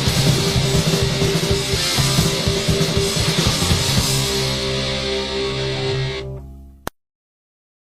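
Hardcore punk band playing distorted electric guitar, bass and drums, then about four seconds in the drums stop and a last chord rings out and fades away. A single click follows near the end, then silence.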